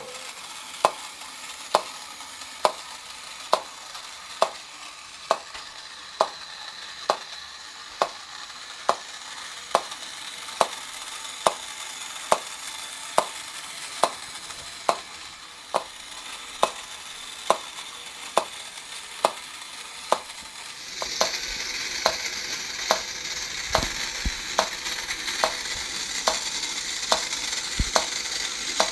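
1950s Cragstan Popcorn Vendor battery-operated tin toy running: a steady rattling hiss of the popcorn balls bouncing in the popping machine, with a regular click from the mechanism a little faster than once a second. About two-thirds of the way through, the rattle gets louder.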